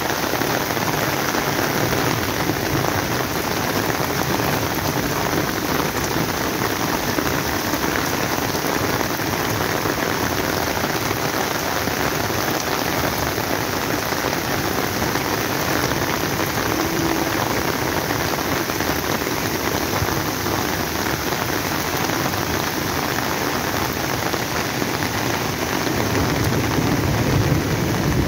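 Heavy rain pouring steadily, mixed with the rush of muddy floodwater tumbling over rocks.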